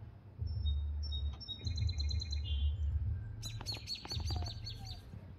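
Small birds chirping: a few thin, high whistled notes, then a quick run of rapid chirps about three and a half seconds in, over a low rumbling noise.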